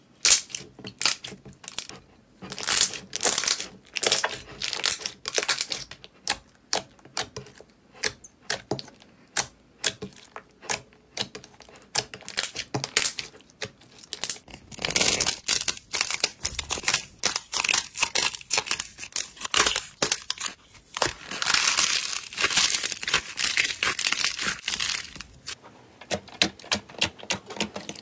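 Hands squishing and kneading thick slime: a steady run of sticky clicks and small pops, thickening into a denser crackling, tearing sound through the middle stretch.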